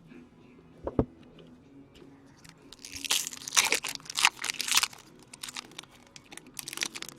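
A knock about a second in, then the wrapper of a 2015-16 Upper Deck SP Authentic hockey card pack being torn open and crinkled for about two seconds, with another short crinkle near the end.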